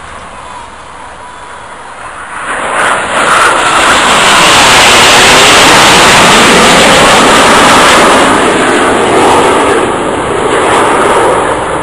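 A formation of military jets with smoke trails flying past overhead, their jet engine noise building about two and a half seconds in, staying loud through the middle, then easing a little as they move away.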